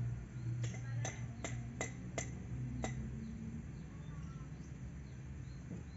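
Six sharp taps in quick succession during the first three seconds, about 0.4 s apart, over a low steady hum. Faint bird chirps follow.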